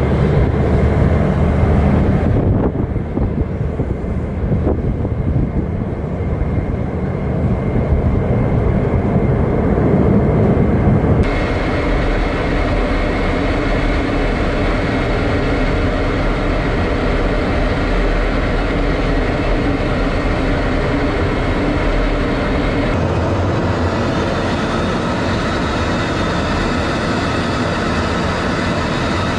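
Loud, steady mechanical noise with a low rumble. Its character changes abruptly about two and a half seconds in, again about eleven seconds in, and near the end.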